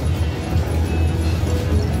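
Electronic music and game sounds from a 40 Burning Hot video slot machine as its reels spin and stop on a win, over a steady low background hum.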